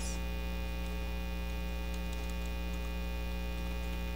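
Steady electrical mains hum with a stack of overtones, picked up in the recording chain.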